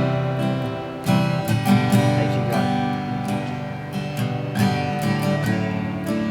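Acoustic guitar strumming sustained chords, with a strum stroke every second or so.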